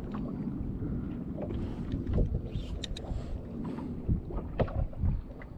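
Wind buffeting the microphone in an uneven low rumble, with a few light knocks scattered through it.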